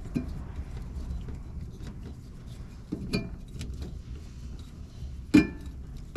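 Scattered clicks and knocks of tools and plastic console parts being handled, over a low steady rumble; one knock about three seconds in and a louder one near the end.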